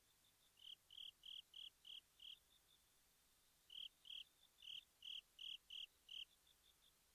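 Faint insect chirping: short, evenly spaced chirps at one high pitch, about three a second, in two bouts with quieter chirps between.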